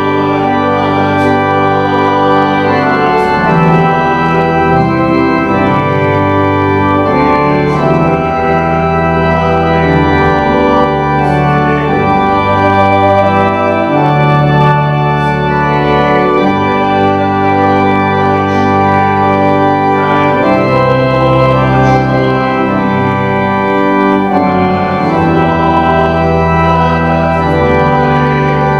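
Church organ playing a slow piece in held chords that change every few seconds, over a steady bass.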